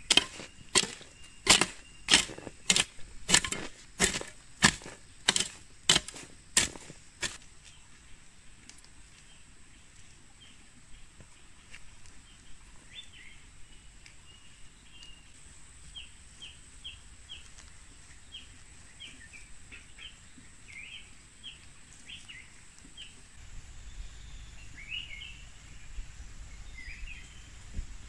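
A hand tool striking hard about a dozen times in a steady rhythm, roughly one and a half strokes a second, stopping about seven seconds in. After that, birds chirp in short calls.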